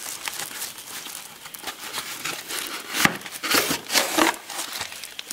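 Cardboard and paper packaging rustling and crinkling as a molded pulp insert is pulled out of a hard disk's box. The rustles come irregularly, with a sharper scrape about three seconds in.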